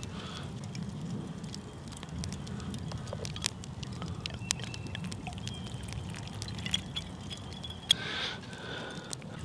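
Water poured from a swing-top glass bottle into a well in a heap of flour, with scattered sharp clicks and a louder click just before the end.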